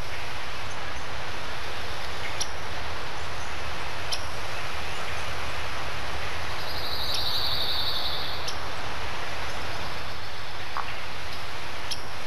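Steady, even rushing noise of outdoor ambience, with a few faint clicks and a brief high buzz lasting about two seconds near the middle.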